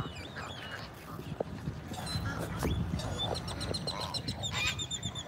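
Waterfowl calling at the water's edge. From about three seconds in, a small bird gives a rapid run of high, evenly spaced chirps. Underneath is rumble from wind and the phone being handled.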